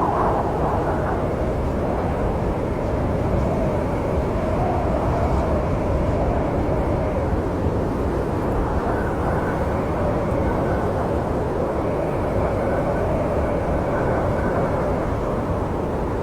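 Snowstorm wind blowing steadily: a low rushing rumble with a faint howl that slowly wavers in pitch.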